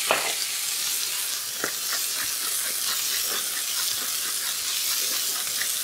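Lamb fillets searing in olive oil in a frying pan with rosemary and garlic: a steady sizzling hiss with a few small pops and crackles.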